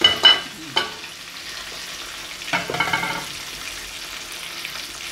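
Aluminium pot lid clanking against the rim of an aluminium cooking pot as it is set half on. There are two sharp ringing clanks at the start, another just under a second in, and a ringing scrape-and-clatter about two and a half seconds in. A steady hiss runs underneath.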